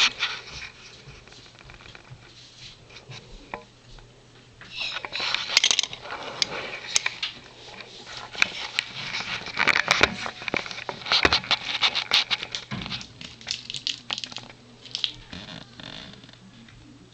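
Rustling and crackling in bedding with many small irregular clicks, in busy stretches from about five seconds in, as a cat moves around during birth.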